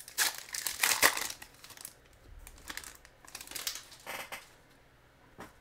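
Foil wrapper of a football trading-card pack crinkling and tearing as it is opened by hand. It comes in two spells of rustling, the louder one in the first two seconds.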